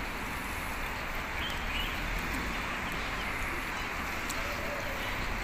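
Steady outdoor rushing noise from the shallow stream and open air, with a few faint, short bird chirps about one and a half seconds in.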